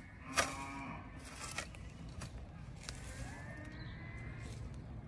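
Garden hoe chopping into soil: a few sharp strikes about a second apart, the first and loudest with a short pitched ring after it. A faint drawn-out tone comes in the second half.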